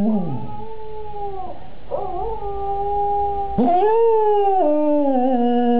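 Cocker spaniel howling along with another cocker spaniel's howling played from a computer, the long drawn-out howls overlapping. A falling howl trails off in the first half-second, a steadier, higher howl holds through the middle, and a loud new howl starts about three and a half seconds in.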